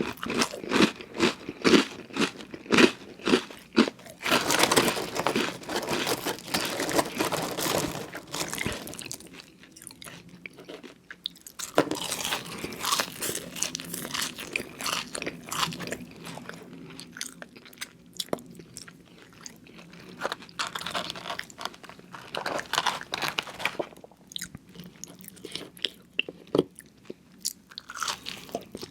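A person chewing crunchy fast food close to the microphone, with sharp crunches about two to three times a second. The chewing eases for a few seconds near the middle, then resumes.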